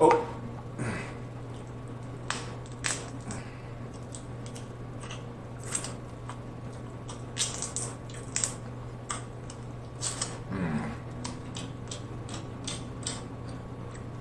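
Close-up wet clicks, cracks and squishes of boiled shellfish being peeled and pulled apart by hand and eaten, irregular and sharp, over a steady low hum.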